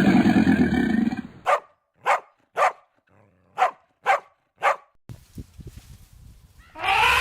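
A deep, rough animal call that ends about a second in, then six short sharp dog barks about half a second apart. A loud pitched animal call begins near the end.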